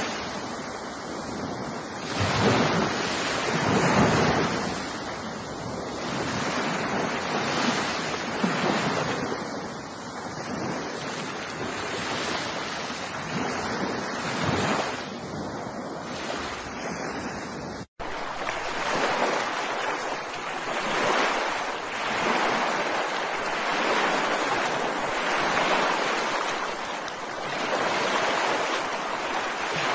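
Ocean waves washing onto a shore in repeated swells every couple of seconds. About two-thirds of the way through the sound cuts out for an instant and resumes as a thinner wash of surf with less low rumble.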